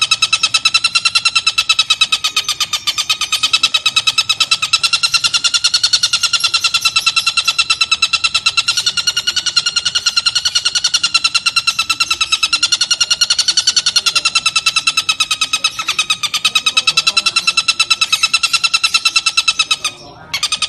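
Oriental dollarbird (tengkek buto) call: a fast, continuous rattling trill on one steady pitch, with a brief break near the end.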